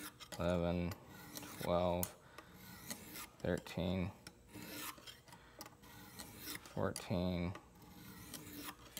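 A medium-grit stone on a Lansky guided knife-sharpening system rasping along a steel knife edge in a series of separate strokes, each under a second long.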